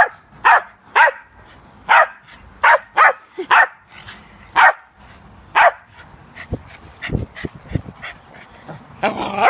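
West Highland White Terrier barking in short, sharp barks, about nine in the first six seconds. A few low thumps follow, and it barks again near the end.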